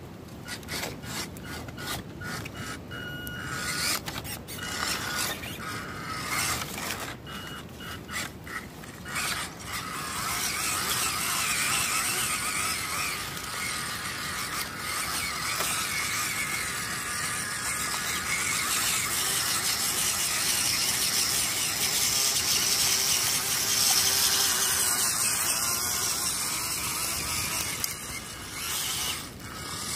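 WPL C14 RC crawler's electric motor and gearbox whining in short bursts of throttle for the first ten seconds or so, then running steadily with a continuous whine as the truck drives on.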